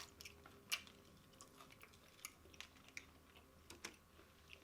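Faint, close-miked chewing of chicken wings: scattered soft wet clicks and mouth smacks, with one sharper click a little under a second in.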